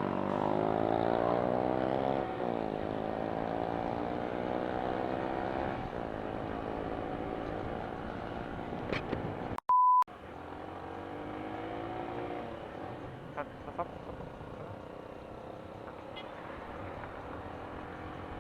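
Yamaha YBR 125 ED's single-cylinder four-stroke engine pulling away, its pitch rising and dropping back at each gear change, over wind noise. Halfway through, a short steady beep briefly replaces all other sound.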